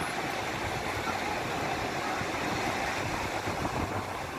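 Waves breaking and washing up a sandy beach: a steady rush of surf.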